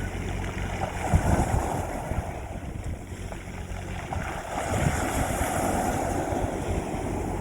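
Sea waves washing on a beach, swelling about a second in and again near the middle, with wind buffeting the microphone.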